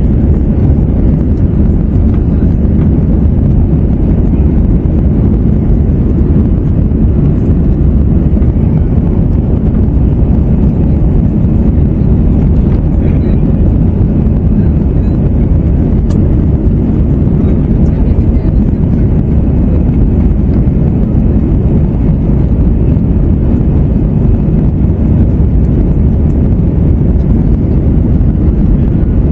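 Steady low cabin rumble of an Airbus A321 in its climb after take-off: engines at climb thrust and the rush of air over the fuselage, heard inside the cabin.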